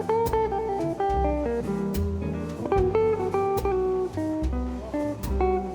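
Background music: an instrumental stretch of a song, guitar over bass with occasional sharp hits.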